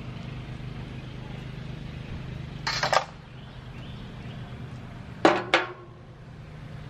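Two sharp metallic knocks about a quarter second apart, ringing briefly, as the round metal head cover of an old V-twin air compressor is worked loose. There is a short scraping clatter about three seconds in, over a steady low hum.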